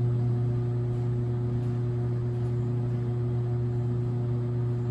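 A steady low hum of a few unchanging tones, starting abruptly just before and holding level throughout.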